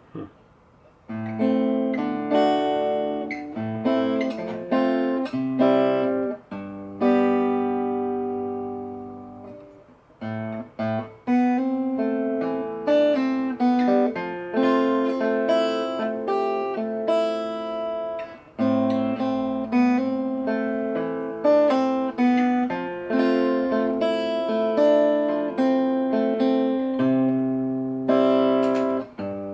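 Egmond archtop acoustic guitar strung with silk-and-steel strings, played fingerstyle: a run of picked notes and chords that ring and fade, with short breaks about a second in and again around ten seconds in.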